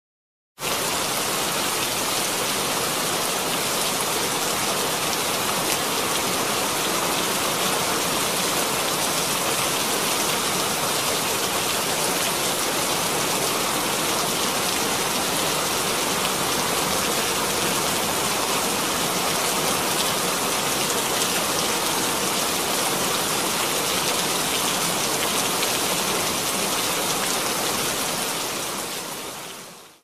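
Steady rain falling, an even hiss that starts about half a second in and fades out over the last two seconds.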